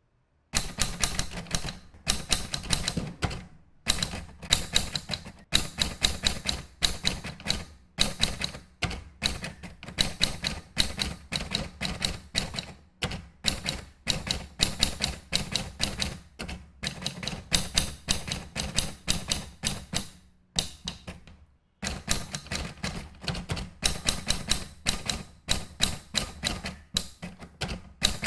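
Manual typewriter being typed on: quick runs of sharp key strikes, several a second, broken by brief pauses, with one longer pause a little past the middle.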